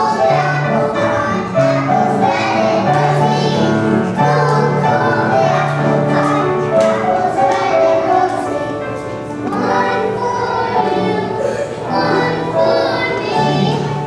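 A class of young children singing a song together in unison, with sustained low instrumental notes running under the voices.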